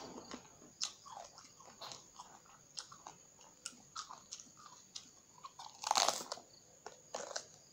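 Crisp crunching and chewing of a raw round green eggplant eaten whole, in many short crunches, with one loud crunching bite about six seconds in.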